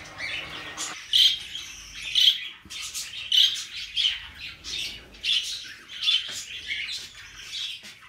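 Budgerigars chirping and squawking: short, sharp, high calls that come about once a second, with fainter chatter in between.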